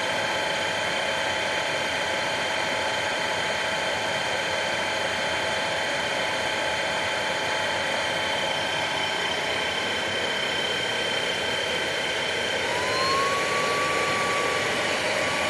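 VacLife VL732 cordless stick vacuum's brushless motor running steadily with a whine at medium power, its brushroll spinning. Near the end the whine rises in pitch and gets a little louder as the vacuum is switched up to high power.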